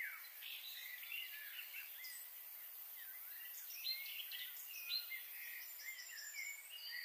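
Several small birds chirping and calling in quick, overlapping phrases over a steady background hiss.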